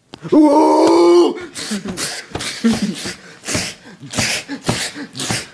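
A person's voice making fight noises: a held cry lasting about a second, then a quick run of short, breathy grunts and mouth-made hit sounds, about two to three a second.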